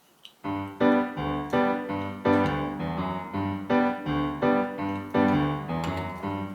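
Background keyboard music: a steady, even run of piano-like notes, about three a second, starting about half a second in.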